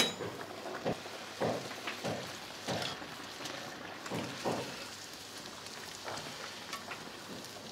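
Bhatura deep-frying in hot oil in a steel kadai: a steady sizzle, with a few brief louder strokes as a slotted spoon works the puffing bread in the oil.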